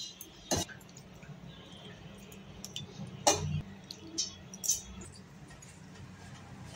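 A few light clicks and clinks of a metal serving spoon against a ceramic bowl, the two loudest about half a second and about three seconds in, over a faint low hum.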